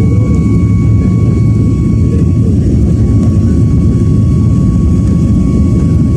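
Jet airliner cabin noise: a steady, loud low rumble of the engines and rushing air, with a thin steady whine above it.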